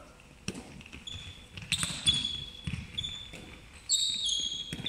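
Handball bouncing and smacking into hands on a sports hall floor: about six sharp thuds, mixed with high drawn-out squeaks of sports shoes on the court.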